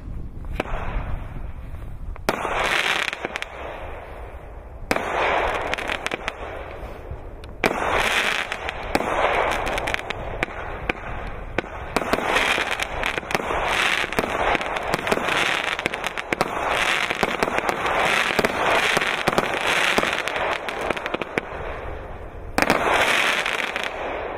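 Le Tigre 'Ciel Etoile' consumer firework going off: a series of shots, each a sudden pop followed by a few seconds of dense crackling, one after another with short gaps.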